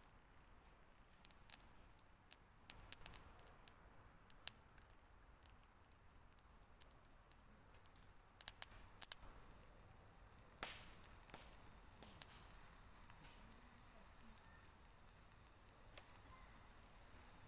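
Scattered light clicks and taps over a near-quiet background, bunched in a few clusters, with one fuller tap with a short ring about two-thirds of the way through.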